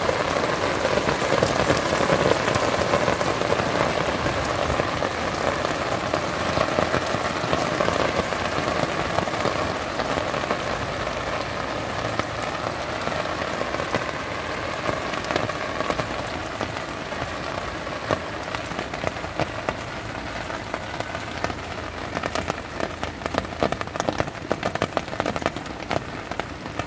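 Rain falling steadily, a dense hiss of many drops, easing gradually so that single drops stand out more near the end.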